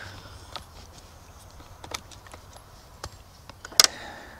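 Chainsaw chain being handled on the bar, its steel links and cutters giving faint scattered clicks and light rattles, with one sharper click near the end.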